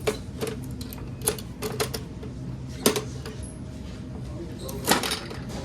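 Sharp, irregular clicks and clacks from a coin-operated prize vending machine being worked with quarters, over a steady low hum.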